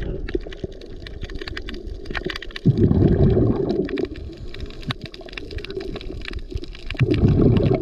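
Underwater recording: a scuba diver's exhaled bubbles rush out twice, once about three seconds in and again near the end, over a constant crackle of small clicks.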